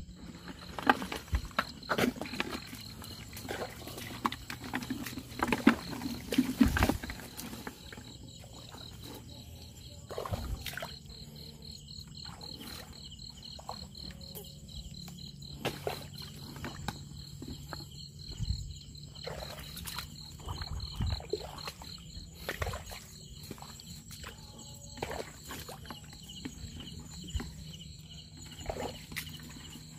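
Insects trilling steadily in a high, rapid pulse, with scattered clicks and knocks, most of them in the first several seconds.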